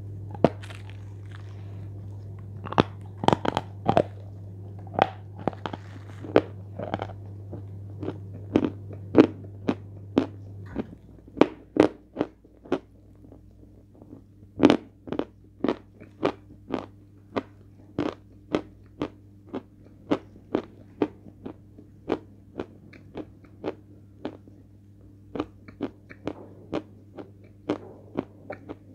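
Hard, brittle pieces of edible chalk being bitten and chewed close to the microphone: sharp crunches, a few irregular bites at first, then steady chewing at about three crunches every two seconds.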